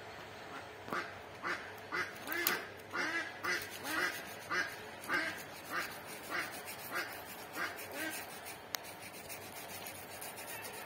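An animal calling in a quick series of about fifteen short calls, roughly two a second, each rising and falling in pitch, spacing out and stopping about three quarters of the way through.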